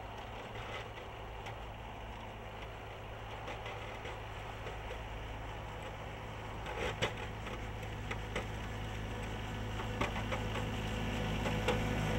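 Sub-compact tractor engine running steadily while the tractor pushes snow with a front blade, getting louder as it comes closer. A few sharp clicks and knocks come through about halfway in and again near the end.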